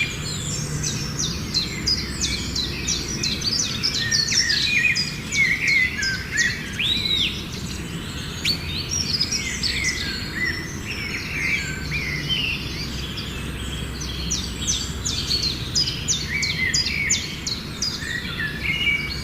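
Many small birds chirping and singing at once, a dense chorus of short high calls, quick trills and rising and falling whistles, over a steady low background rumble.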